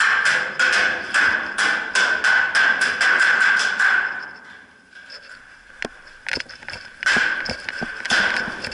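Rapid paintball gunfire, about four sharp shots a second, stopping about four seconds in, followed by a few scattered single shots.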